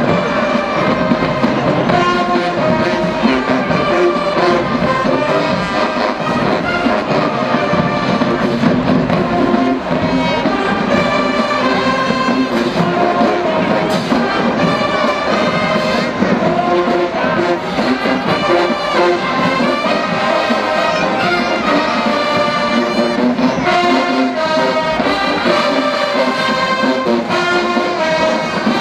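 College marching band's brass section playing a loud, steady tune with trumpets and trombones, drums underneath.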